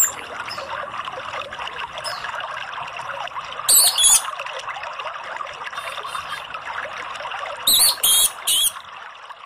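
Orange-headed thrush singing loud, high, fast-sweeping song phrases: a pair about four seconds in and three more near the end, over a steady trickle of water.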